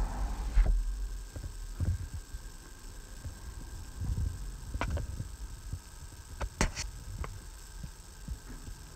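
Range Rover transfer case shift motor whirring during a transfer case module calibration, cutting off under a second in. It is followed by scattered low thumps, a few sharp clicks and a faint steady hum.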